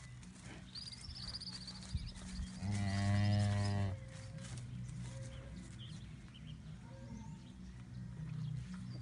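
Dairy cow mooing once, a low call lasting a little over a second, about three seconds in.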